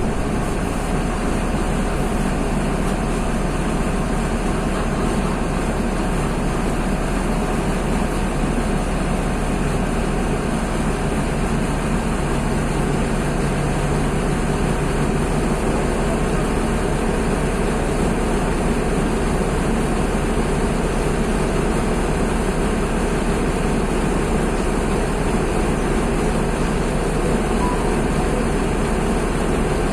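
Mercedes-Benz OF-1724 Bluetec 5 bus's OM-926 LA six-cylinder diesel engine running steadily, with an even drone and no revving.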